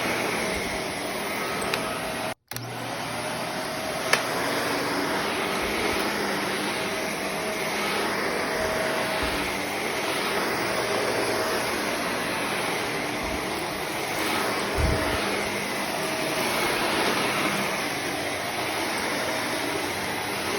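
Shark Navigator Lift-Away Professional UV54026 upright vacuum running steadily, a dense whooshing motor-and-airflow noise with faint steady tones. The sound cuts out for an instant about two and a half seconds in, and there is a low thump near the three-quarter mark.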